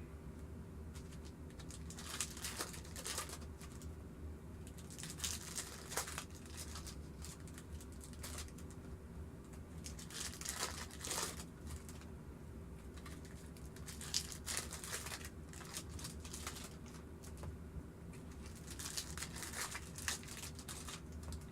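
Plastic or foil wrapping crinkling and rustling in irregular bouts as it is handled, over a steady low hum.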